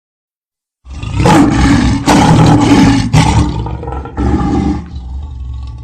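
Large animal roaring: after a second of silence, a run of loud, rough roars for about four seconds, then a lower, quieter rumble.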